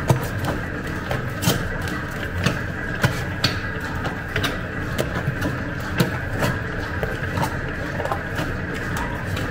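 Electric dough mixer running steadily as it kneads a wet, high-hydration bread dough. The dough slaps against the steel bowl with sharp smacks every half second to a second over the motor's hum.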